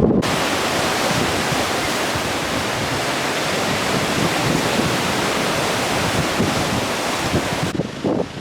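Sea surf rushing as a steady, even hiss that starts abruptly and cuts off suddenly near the end.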